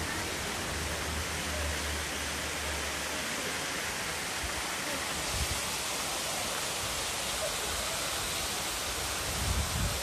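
Kuzalan waterfall's water falling over the cliff: a steady, continuous rush of water. A few low thumps come about halfway and near the end.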